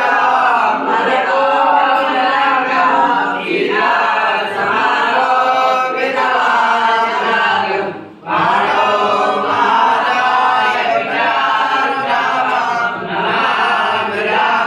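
Group of voices chanting a Hindu devotional aarti hymn, with a brief break about eight seconds in.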